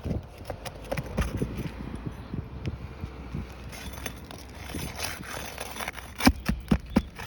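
Irregular scraping and clicking from work on an asphalt shingle roof, with a couple of sharp knocks near the end.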